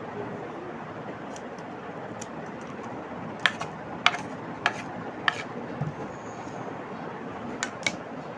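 Knife peeling a raw potato by hand: sharp clicks of the blade, four about half a second apart partway through and two more near the end, over a steady background hiss.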